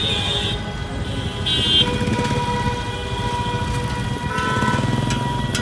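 Road traffic heard from inside a car: a steady low engine rumble, with short horn toots near the start and about a second and a half in, and another horn-like tone a little after four seconds.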